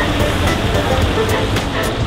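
Background music with a beat over steady street noise.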